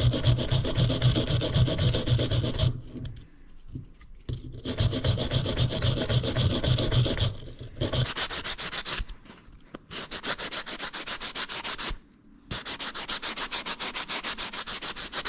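Sandpaper rubbed quickly back and forth over a steel bicycle bottom bracket spindle in four bouts of rapid strokes with short pauses, cleaning its crusty, pitted surface by hand.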